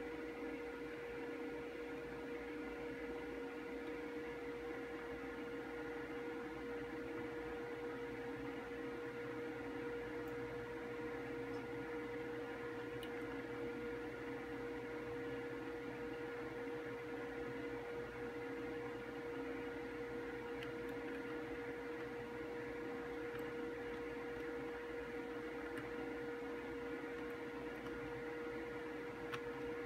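Steady electrical hum with one strong high-pitched tone over a faint hiss, unchanging throughout, and a faint click near the end.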